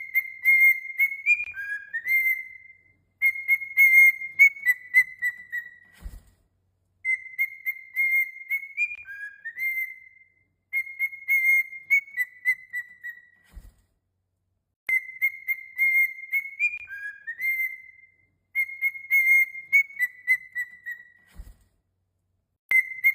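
Pet parrot whistling the same short tune over and over, about six times, each phrase a few seconds long with a short pause between. A faint low knock falls in three of the pauses.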